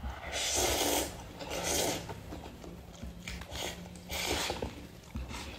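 A person slurping instant cup noodles off chopsticks: two long, loud slurps in the first two seconds, then several shorter slurps.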